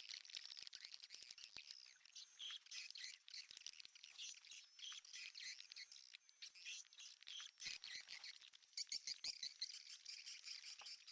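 Swiftlets twittering, faint: a dense, continuous high chatter of chirps, with a run of sharp rapid clicks in the last few seconds.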